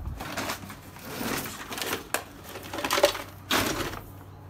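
Rummaging through a bag of power cords and tools: irregular rustling and clunks, with a sharp knock about two seconds in.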